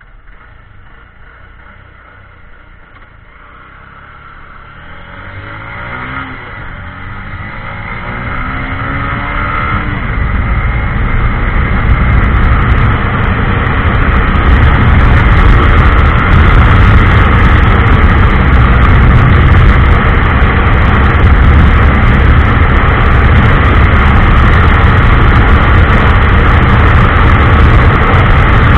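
Honda SP 125's single-cylinder engine accelerating hard, its pitch climbing through the gears in the first ten seconds, then buried under loud wind rush on the microphone that builds until about fifteen seconds in and holds steady at top speed.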